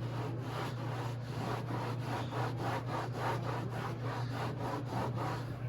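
Rapid back-and-forth scrubbing strokes, about three a second, on a boat's fiberglass non-skid deck, working off hardened carpet spray adhesive softened with Goof Off remover.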